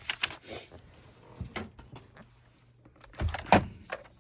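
Paper and craft tools being handled on a tabletop: a few light clicks and rustles, then a louder knock about three and a half seconds in.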